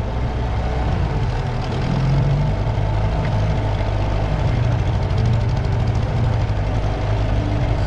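Suzuki 15 hp outboard motor running steadily under way, with a steady hiss of water and wind beneath it.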